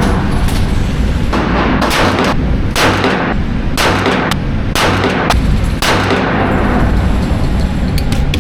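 Gun shots at a shooting range: about ten shots at irregular intervals over the first six seconds, each with a short ringing tail, over a steady low rumble.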